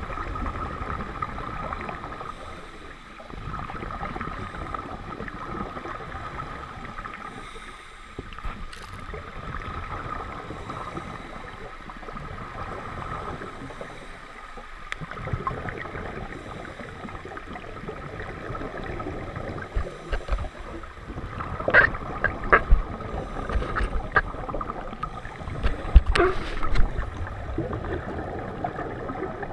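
Underwater sound picked up by a camera in a waterproof housing: a steady rushing noise with a faint whine, swelling and dipping every five or six seconds. Several sharp clicks and knocks come about three quarters of the way through.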